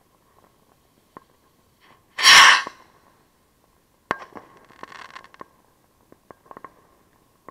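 A firework rocket launching with a short, loud whoosh about two seconds in, then bursting overhead with a sharp crack about four seconds in, followed by a second or so of crackling and scattered pops.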